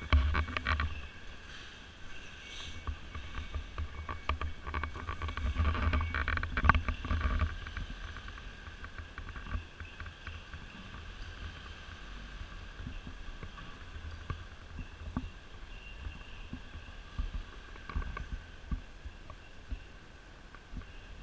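Knocks and low rumble from a body-worn action camera being carried, with footsteps, over the first several seconds. The camera then settles and a steady background hum of a large covered market hall remains, with a few faint held tones and occasional small knocks.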